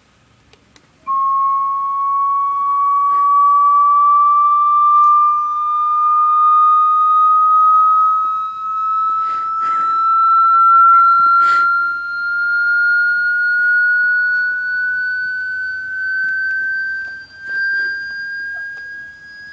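Hearing-test sweep tone played from a video: a single pure tone starts about a second in and climbs slowly and steadily in pitch, with a few brief clicks and knocks along the way.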